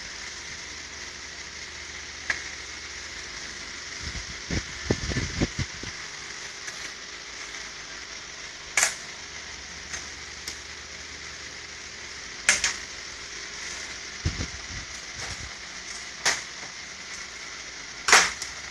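Scattered sharp clicks and low knocks of metal and plastic parts being handled with a screwdriver inside an open Riso duplicator's drum mechanism, over a steady hiss, with a cluster of dull bumps about four to six seconds in.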